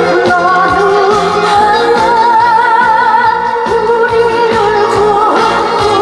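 A woman singing with a wide vibrato into a microphone over live band music, with janggu drums struck in a steady beat.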